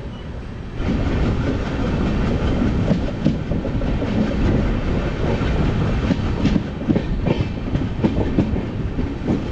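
Express train's wheels running on the rails, heard from an open coach doorway, with irregular clacks as the wheels pass over rail joints. The noise jumps suddenly louder about a second in.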